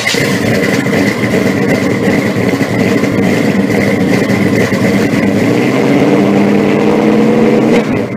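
Engine running loudly and steadily, with a held high whine over it, dropping away at the very end.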